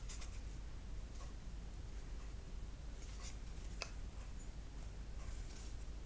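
Hands handling a homemade air gun's wooden stock and tube barrel: faint rubbing and scattered light clicks, with one sharper click a little under four seconds in, over a low steady hum.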